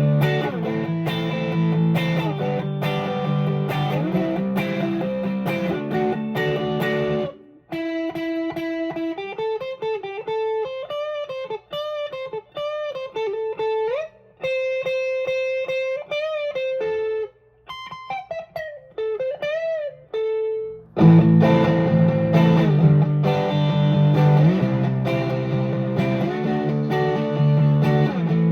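Electric guitar played through a Tube Screamer-style overdrive pedal into a Vox AC10 amp. It opens with a dense overdriven riff, moves after about seven seconds to a sparser single-note lead with string bends and short pauses, and returns to the fuller riff, a little louder, about three-quarters of the way through.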